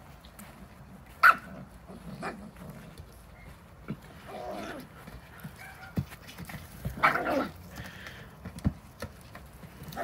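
Small dogs barking and yipping at intervals while playing with a ball. The loudest is a sharp bark about a second in, with another cluster of barks about seven seconds in.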